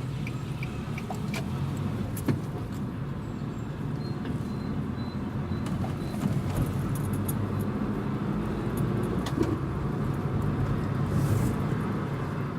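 Steady engine and road hum inside a moving car, with scattered small clicks and rattles from the cabin. For about the first second and a half, evenly spaced ticks come about three a second, like a turn-signal indicator.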